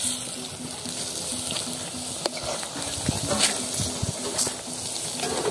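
Balls of rice and cassava flour dough sizzling as they deep-fry in hot oil in an aluminium pot, with a metal spoon clinking against the pot several times as they are turned. Faint background music plays underneath.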